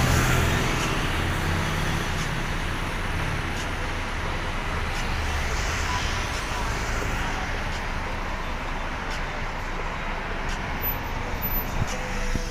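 Road traffic passing: car engines and tyres making a steady rush with a low rumble, strongest in the first five seconds and then easing off.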